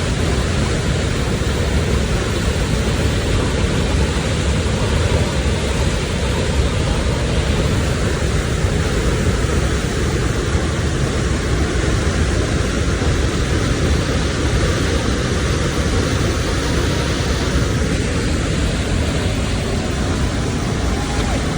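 Speedboat running fast: a steady, loud rush of wind and water, with the wind buffeting the microphone.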